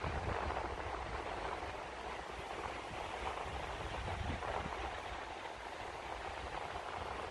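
Ocean surf on a sandy beach: a steady wash of breaking waves.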